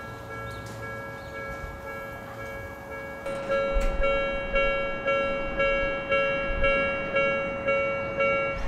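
Railway level-crossing warning bell ringing in an even ding-ding pattern about twice a second. It is faint at first and grows louder from about three seconds in, over a low rumble from the tram.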